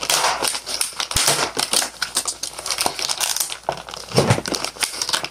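Packaging crinkling and rustling in irregular bursts as a package is torn and pulled open by hand, with a dull knock about a second in.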